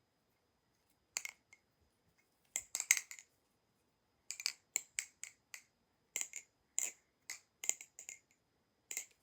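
Squid Industries Kraken V3 butterfly knife being flipped open and closed by hand: a series of sharp metallic clicks and clacks from the handles and blade, coming in small clusters.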